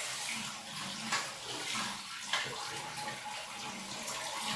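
Water running steadily from a tap, with two light knocks, about one and two and a half seconds in.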